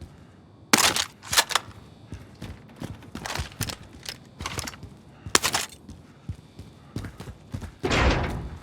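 Shooter video game sound effects: a series of sharp cracks and thuds, with a longer rushing burst near the end.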